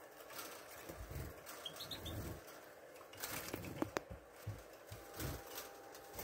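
European goldfinch fluttering its wings in a small wire cage, in soft irregular bursts, with a couple of faint high chirps about two seconds in.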